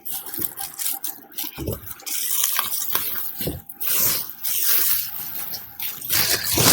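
Packaging being unwrapped and handled around a subwoofer: irregular rustling and crinkling with a few soft knocks.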